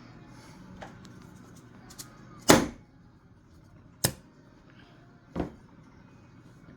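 Handling of small rifle trigger-group parts and tools: a few separate sharp knocks and clicks, the loudest about two and a half seconds in.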